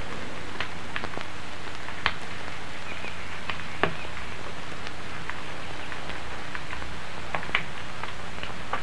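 Steady hiss with a low hum under it, and sparse small clicks and ticks about once a second, the sharpest about two and four seconds in.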